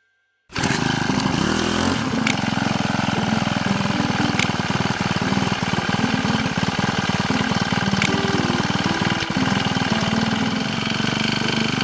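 A small engine or motor running steadily with a fast, even pulse, starting abruptly about half a second in.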